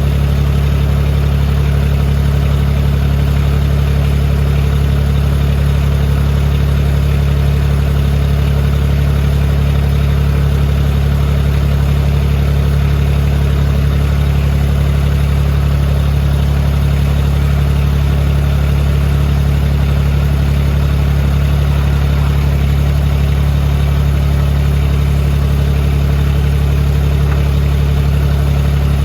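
Compact tractor's diesel engine idling, a steady low hum that does not change.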